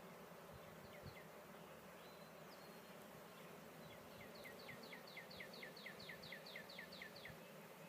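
Faint steady buzz of honey bees around the open hive. From about four seconds in, a rapid run of high, falling chirps repeats about four times a second.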